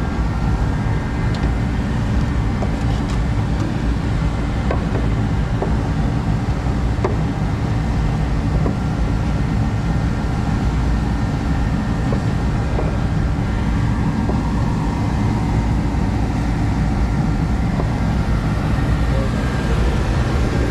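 Shop space heater running with a steady low rumble, with a few faint clicks and taps over it.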